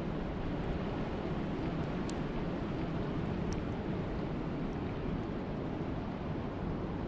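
Wind and rain at a lake: a steady rushing noise, heaviest in the low range, with a few faint, sharp ticks.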